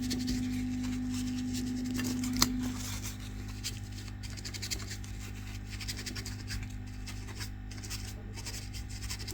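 Light, irregular scratching and rubbing as the charging-port pads on a phone's circuit board are scrubbed clean. A steady electrical hum runs underneath, and one of its tones stops about two and a half seconds in.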